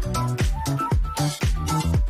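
Background electronic dance music with a steady four-on-the-floor kick drum, about two beats a second.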